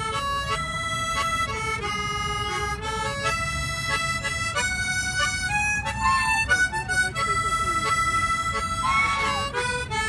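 Harmonica played solo: a slow melody of held notes, changing every half second to a second. Two short bending sounds come about six and nine seconds in.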